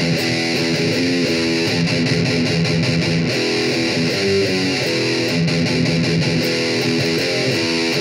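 Distorted electric guitar playing a picked riff of chords and single notes at an even, loud level.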